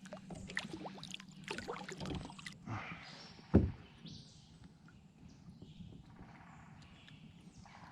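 A small largemouth bass being brought in and handled at a kayak: light splashing and clattering of tackle, then one loud thump against the hull about three and a half seconds in. After that, a quiet lapping of water with a few short bird chirps.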